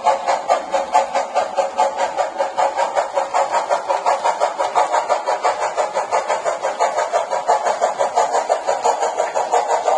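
Model railroad grade-crossing signal's bell ringing rapidly and steadily, several strokes a second, while the crossing lights flash for a passing train.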